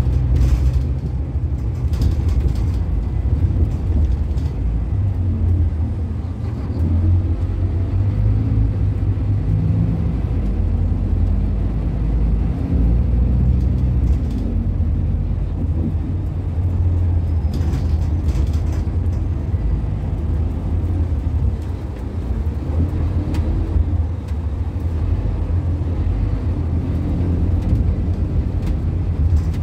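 Inside a Scania K280UB city bus, its rear-mounted 9-litre five-cylinder diesel runs under way with a steady low rumble that rises and falls in pitch as the bus accelerates and eases off. A few brief clicks sound along the way.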